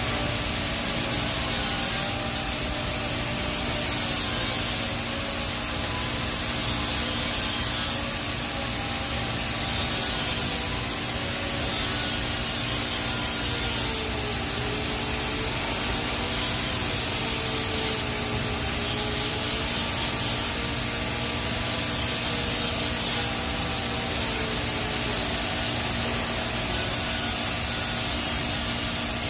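TIG welding arc on a stainless steel pipe root pass: a steady hiss with a low hum under it.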